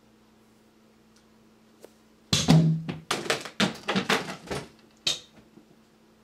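A dog moving off quickly in a room: a run of loud knocks and thumps, like paws and body bumping floor and furniture, starting about two seconds in and lasting about two seconds, then one more knock.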